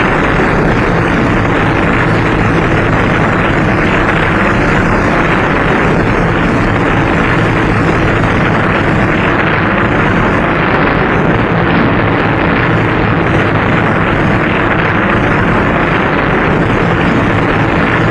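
Piston-engined propeller aircraft engines running, a loud steady drone with no letup.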